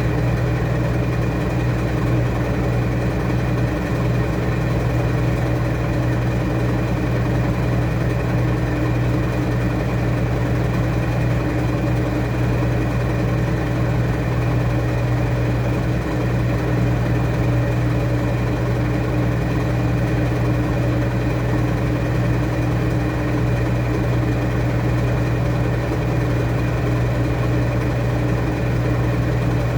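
Washing machine running with a steady, unchanging hum.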